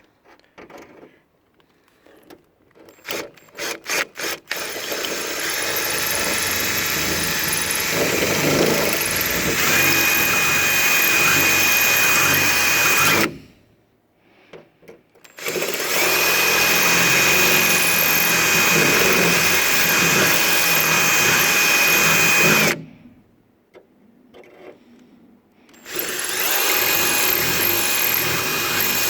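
Power drill boring out holes in the steel underside of a car bonnet. It runs in three long stretches with short pauses between, after a few short clicks at the start. A high steady whine joins in partway through the runs.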